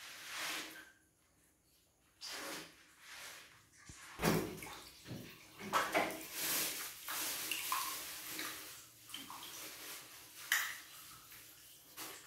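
Water splashing and sloshing in a plastic bucket as a baby monkey bathing in it moves about. The splashes come and go, the loudest about four seconds in.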